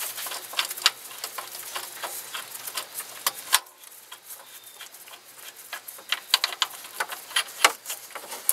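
Irregular sharp metallic clicks and ticks as the serpentine belt tensioner's mounting bolt is unscrewed by hand. The clicks thin out for a couple of seconds near the middle.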